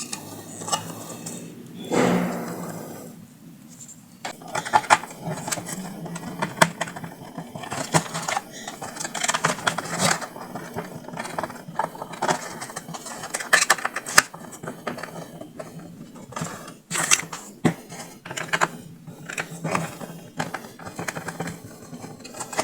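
Small tools and speaker parts being handled on a workbench: repeated irregular clicks, taps and scrapes.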